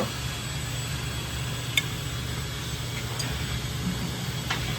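Steady low machine hum with faint hiss, with two light metallic clicks about two seconds and four and a half seconds in, as the gear pump's parts are handled.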